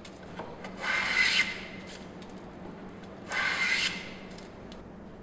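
Transitional hand plane, a wooden body with metal parts, taking two strokes along the edge of a board. Each stroke is a short shaving hiss lasting about half a second, one about a second in and the next about two seconds later.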